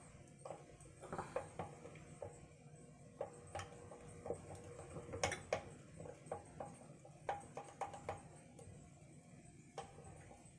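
Faint, irregular clicks and taps of a stirring utensil against a small glass container as melt-and-pour soap is stirred while it melts in a double boiler.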